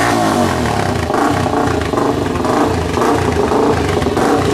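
A Honda dirt bike's engine running, its pitch rising and falling as it is revved.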